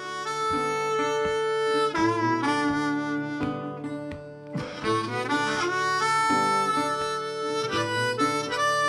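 Background music: a harmonica playing held chords that change every second or so.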